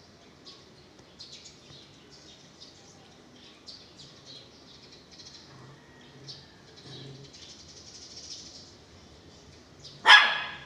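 Belgian Malinois giving one loud, sudden bark near the end, over faint, scattered high-pitched chirps.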